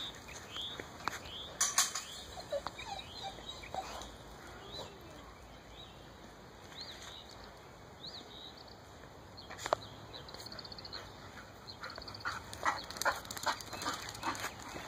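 Outdoor yard ambience with scattered high bird chirps, a few sharp clicks, and a run of short steps or rustles near the end.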